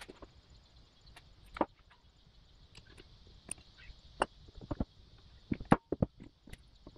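Irregular metal clicks and clinks as gears and a thin tool are handled inside an open riding-mower transmission case, the sharpest knock a little before six seconds in.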